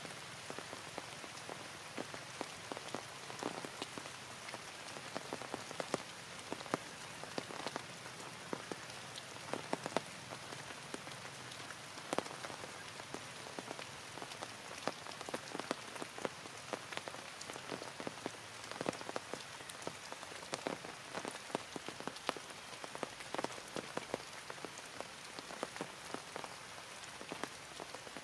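Heavy rain falling steadily, with many separate drops striking close by as sharp taps.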